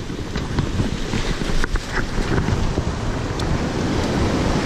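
Ocean surf washing and breaking over a rocky shoreline, with wind buffeting the microphone and a few light clicks.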